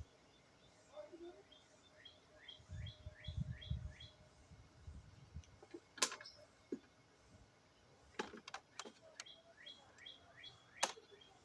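A small bird chirping in quick runs of short falling notes, several a second. A few sharp clicks and knocks sound in between, the loudest about six seconds in and near the end, with a brief low rumble around three seconds in.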